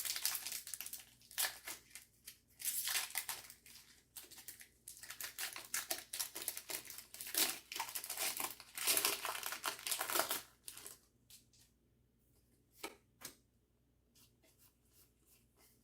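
A foil Pokémon trading card booster pack being torn open and its wrapper crinkled, a dense run of ripping and rustling for about ten seconds, then a few faint light taps near the end.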